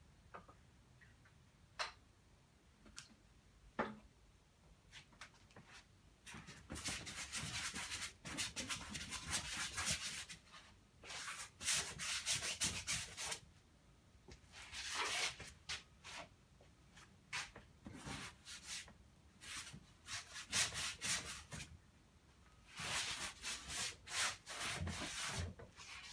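Paintbrush scrubbing oil paint onto canvas in quick back-and-forth strokes, coming in bursts with short pauses between them, starting about six seconds in. A few light clicks before that.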